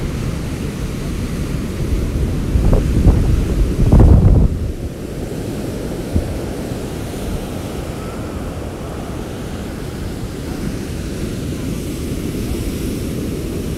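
Storm surf crashing and washing up the beach, with strong wind buffeting the microphone. The buffeting is hardest about three to four seconds in.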